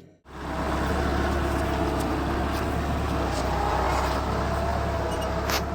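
A motor vehicle's engine running with a steady low drone, and a sharp click about five and a half seconds in.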